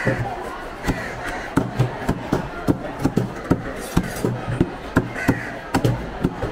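A long fish knife chopping a dolphin fish (mahi-mahi) into chunks on a wooden stump chopping block: sharp chops, about two to three a second, each blade stroke going through the fish and striking the wood.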